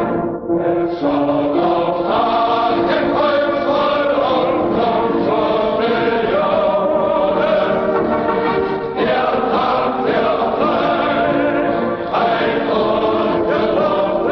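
A choir singing a national anthem.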